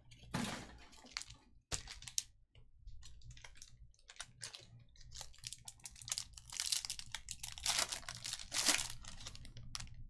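Crinkling and tearing of a Topps Chrome foil card-pack wrapper being ripped open by hand, the crackle densest past the middle as the pack is torn.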